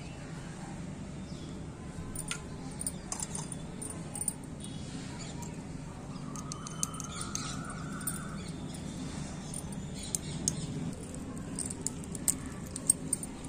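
Light metallic clinks and taps of a tiny steel spoon against miniature aluminium pots and spice bowls, scattered through and sharpest near the end, over a steady low background hum.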